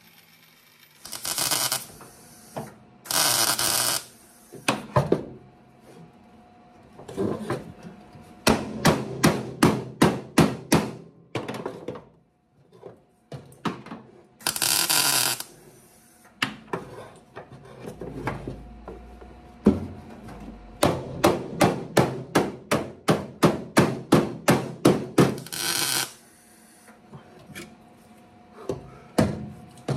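Hammer blows on the welded sheet-metal wheel well of a VW Beetle, in runs of about three strikes a second, broken by a few short bursts of a grinder.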